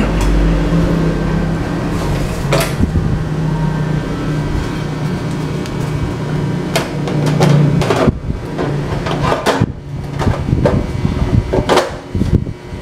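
Sheet-metal top cover of an audio amplifier being handled and fitted onto its chassis: a series of sharp metallic knocks and clatters, more frequent near the end, over a steady low hum that fades about eight seconds in.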